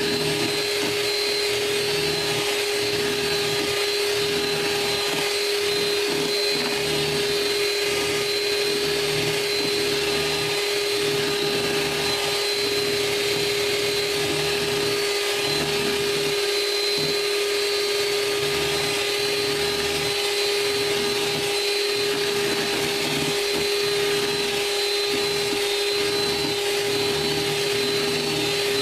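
Electric hand mixer running steadily at one speed with a constant motor whine, its beaters whipping egg whites and sugar into a French meringue.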